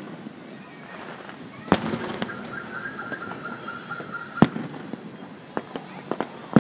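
Aerial firework shells bursting: two loud booms about three seconds apart, with smaller pops and crackles between them.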